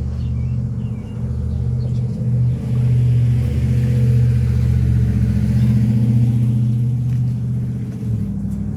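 A motor running steadily with a low hum, getting louder about two and a half seconds in and easing back near the end.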